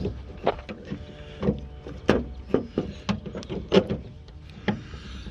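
Worn exterior door handle being wrestled out of a Ford F-150 door, clunking and clicking against the door's sheet metal in a string of irregular knocks, some with a short metallic ring.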